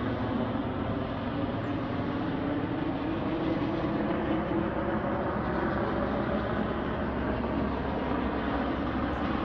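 A boat's engine running at a steady drone, with low hum tones under a constant rushing hiss.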